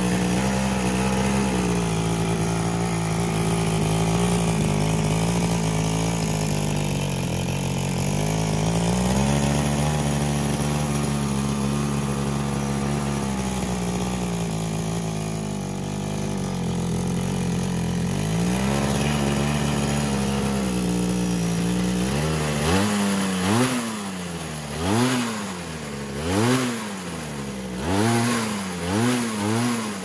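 Small 22cc two-stroke hedge trimmer engine running steadily, its pitch stepping up and later settling back down. About three quarters of the way through it is revved in quick blips, the pitch rising and falling about every second and a half.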